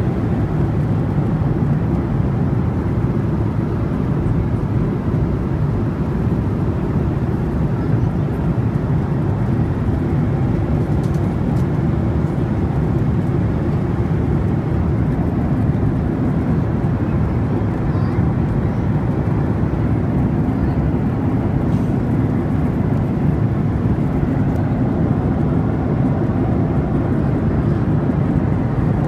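Steady cabin noise inside a Boeing 737-800 in flight: a continuous rumble of the CFM56-7B engines and airflow, heaviest in the low end.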